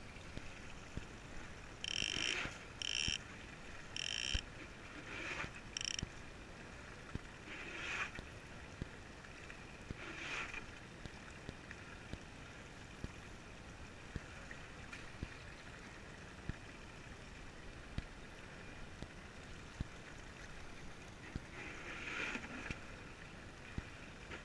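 Fishing reel buzzing in short spurts of under half a second, several in quick succession in the first few seconds, then a couple more and one near the end, as a hooked yellowfin tuna is fought on rod and reel. Faint steady water and wind noise underneath.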